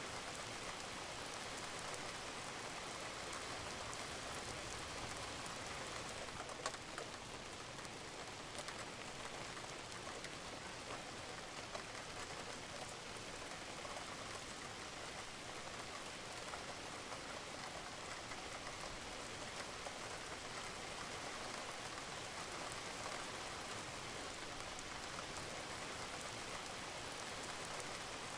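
Steady rain falling on a roof, with water dripping; an occasional louder single drop stands out, one about six and a half seconds in.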